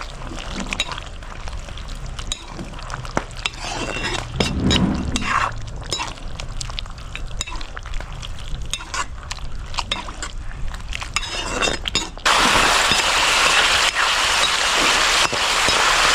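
Stirring in a cooking pot, with a utensil clinking and scraping against it at irregular moments. About twelve seconds in, a loud steady hiss starts abruptly and takes over.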